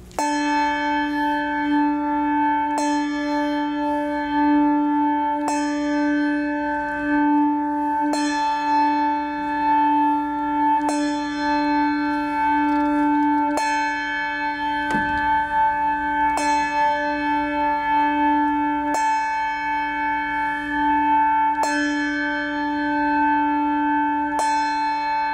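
A single church bell tolling slowly, one strike about every two and a half to three seconds on the same note, each stroke ringing on into the next.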